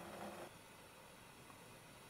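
Near silence: room tone, with faint handling noise in the first half second that cuts off abruptly.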